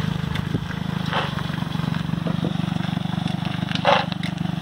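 The water-cooled engine of a home-built garden tractor running steadily at idle, with no throttle hooked up, while the tractor is driven slowly. A short sharp knock stands out a little before the end.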